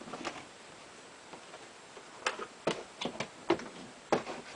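A series of sharp, irregular clicks and clacks from parts of a CO2 BB pistol and its magazine being handled, about seven or eight of them, mostly in the second half.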